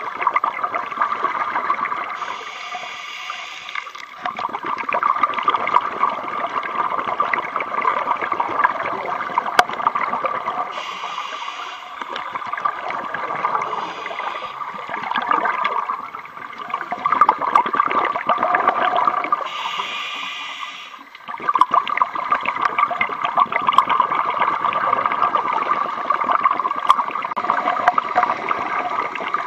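Underwater sound from a scuba diver's camera: a steady crackling water noise, with the hiss of a scuba regulator breath coming in four times, each lasting one to two seconds.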